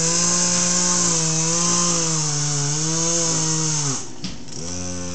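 Chainsaw running at high speed with its pitch wavering, then dropping sharply about four seconds in and settling to a lower, steady idle.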